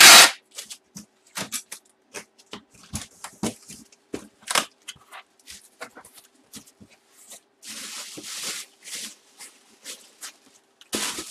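Tape being pulled and torn and plastic wrapping crinkling as a cardboard box is taped up: a loud rip right at the start, scattered crinkles and clicks, and a longer rasp of tape coming off the roll about eight seconds in.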